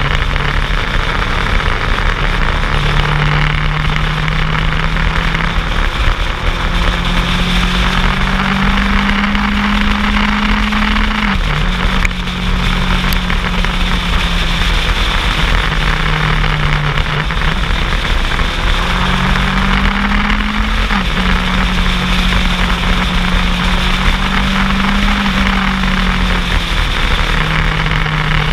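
Heavy wind rush on the microphone of a motorcycle at road speed, with a motorcycle engine running under it. The engine note climbs slowly and drops sharply at a gear change, once about a third of the way in and again about two thirds in.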